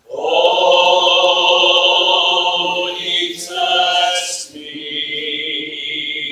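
Singing voices holding long notes with vibrato. The pitch changes a little past the middle, and a new held note follows.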